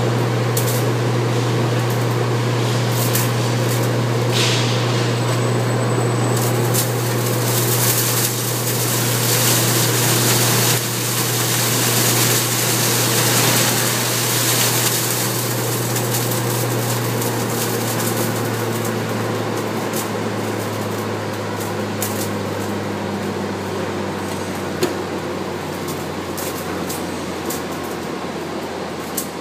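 A straw-handling machine running steadily, its slatted hopper conveyor carrying loose straw. A loud low hum and an even hiss; the hiss is strongest in the middle, and the hum sinks slightly in pitch near the end.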